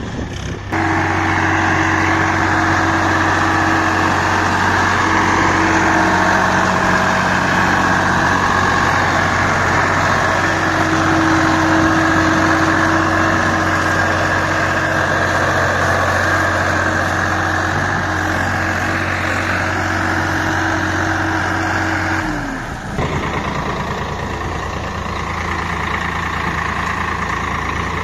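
Tractor diesel engine running hard at high revs, pulling against a trolley stuck in mud. A little past twenty seconds the revs fall away and it settles to a lower, quieter run.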